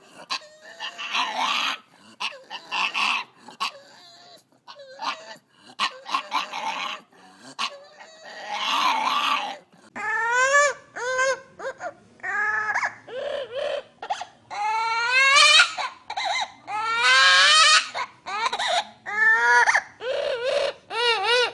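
Dog whining and crying: short vocal calls, then from about halfway a run of high, rising whines and yips repeated in quick succession.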